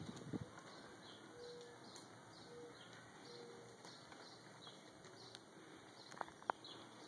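Faint outdoor ambience with distant birds calling: a regular high chirping throughout, a few short low notes in the first half, and two sharp clicks about six seconds in.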